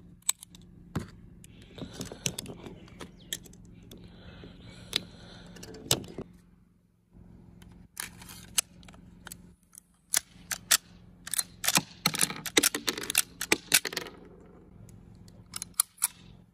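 Sharp metallic clicks of cartridges being pressed into a pistol magazine, then clacking of a Chinese-made PX-3 pistol's slide and magazine being worked by hand, with a dense run of clicks in the second half. The pistol's chamber sticks while loading.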